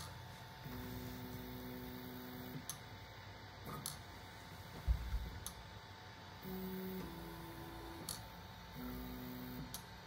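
Stepper motors of a custom CoreXY 3D printer printing at high speed (about 600 mm/s): pitched whining tones that hold for a moment and then jump to a new pitch with each move, over a steady fan hum, with scattered clicks and a low thud about halfway.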